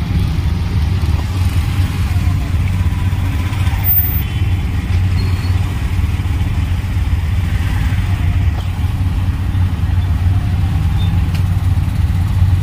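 Road traffic in a slow queue: car and motorbike engines idling and running close by, making a steady low rumble.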